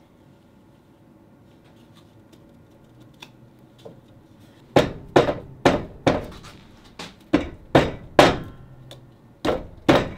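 Mallet tapping glued pallet-wood panel pieces together to seat them on fluted dowel pins. A dozen or so sharp knocks, about two a second, begin about halfway through, with a short pause near the end.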